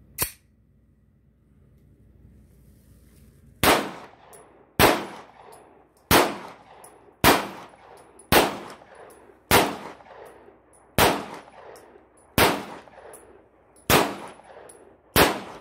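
Beretta semi-automatic pistol fired in slow, aimed single shots. One short report comes right at the start, then after a pause ten shots follow at a steady pace about a second and a quarter apart, each with a short ringing echo.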